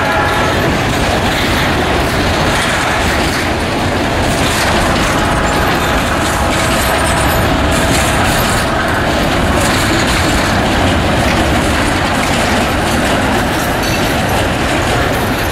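Empty freight cars of a long train rolling past, a steady rumble and clatter of steel wheels over rail joints. A locomotive horn dies away about half a second in.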